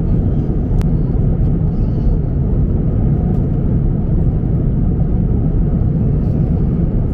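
Airliner cabin noise in flight: a steady, deep roar of the engines and air rushing past the fuselage. A faint click comes about a second in.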